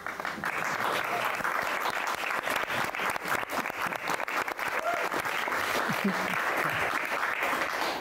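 Audience applause: many people clapping at once, starting suddenly and keeping up steadily.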